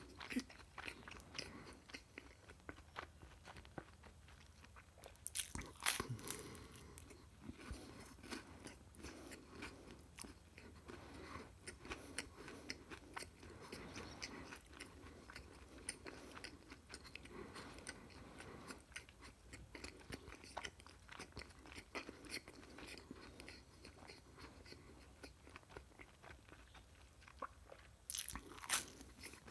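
Close-miked chewing and crunching of food. Louder crunching bites come about five seconds in and again near the end.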